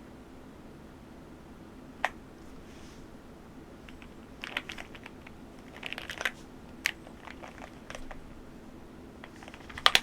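Keyboard unboxing handling: a single sharp click about two seconds in, then scattered clicks and crinkling of packaging in the middle, and a loud pair of clicks near the end.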